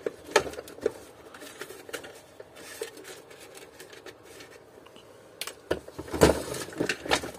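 Plastic parts of a canister vacuum cleaner's housing being handled and shifted: scattered light clicks and scrapes, then a run of louder plastic knocks near the end.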